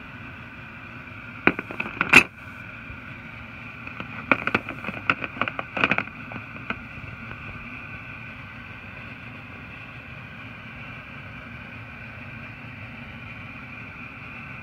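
Steel front-end puller tools clinking and knocking against their moulded plastic case as one is handled and set back in its slot: a few sharp knocks about a second and a half in, then a quick run of clacks about four to six seconds in. A steady hum runs underneath.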